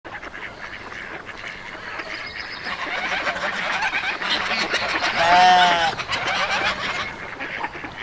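Animal calls: a busy chatter that builds over the first five seconds, then one loud, drawn-out pitched call lasting under a second.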